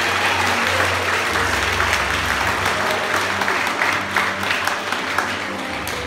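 A large crowd of schoolchildren applauding, the clapping slowly dying down.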